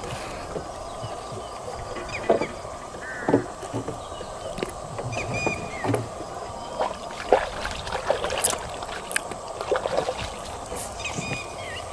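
Water lapping and knocking against a narrow wooden boat while a spinning reel is cranked to retrieve a lure, with scattered knocks and a few short high chirps over a steady background hum.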